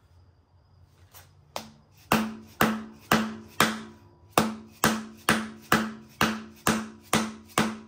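Hammer blows on a bolt driven into the crankshaft's pilot bearing bore of an LS engine: a first strike about a second and a half in, then about a dozen steady blows at roughly two a second, each with a short metallic ring. The blows force bread packed in the bore against the pilot bearing to push it out of the crank.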